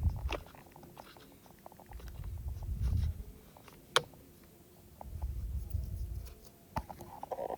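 Light plastic clicks and handling noise from working the airbag module and its push-lock connector off a steering wheel, with one sharp click about four seconds in. Low muffled rumbles swell and fade every few seconds underneath.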